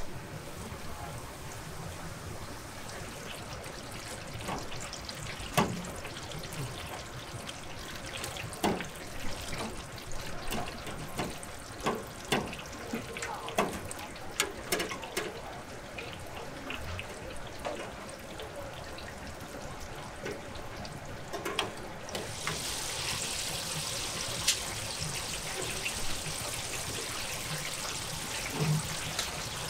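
Clinks and taps of cooking utensils at a food stall. About two-thirds of the way through, a steady high sizzling hiss starts suddenly as fish goes into hot oil for deep-frying.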